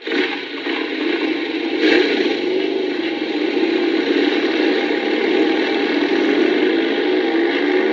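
A steady mechanical running or whirring noise starts abruptly and carries on evenly, with a wavering hum underneath and a single click about two seconds in.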